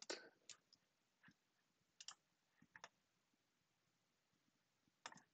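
Faint, scattered computer mouse clicks in near silence, with a quick pair about two seconds in and another near the end.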